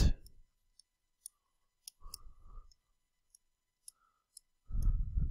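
Faint, scattered small clicks of a stylus on a pen tablet during handwriting, in an otherwise quiet room. A short, louder low sound comes near the end.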